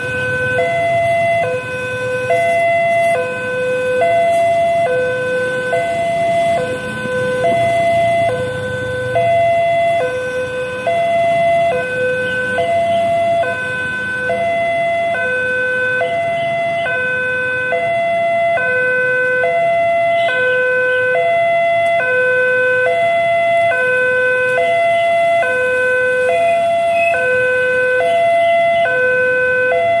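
Electronic warning siren of a railway level crossing, sounding from the horn loudspeaker on the crossing post as the barriers close for an approaching train. It alternates between two tones in a steady, even high-low pattern. This is the crossing's newly changed siren, louder and a little slower in tempo than the old one. Road traffic rumbles underneath during the first few seconds.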